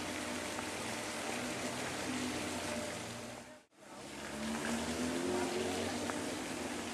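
Steady outdoor background noise, a hiss-like hum with faint traffic-like tones in it. It drops out to silence for a moment about halfway through, at a cut between two clips, then comes back.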